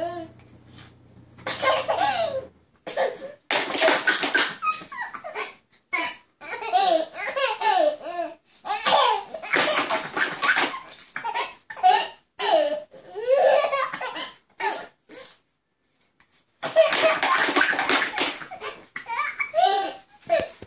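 Toddler laughing hard in repeated fits, broken by short pauses, with a brief silence shortly before one long fit near the end.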